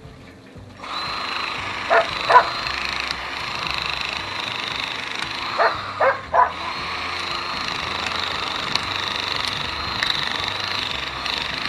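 A power tool starts about a second in and runs steadily with a high whine, dropping briefly near the middle. A dog barks twice early on and three times in quick succession around the middle.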